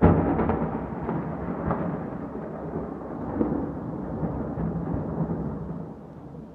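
Thunder: a sudden loud crack with crackling in the first couple of seconds, then a rolling rumble that slowly fades over about six seconds.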